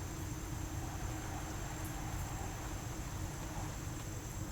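Quiet outdoor background: a steady high-pitched insect drone over a low rumble, with no distinct events.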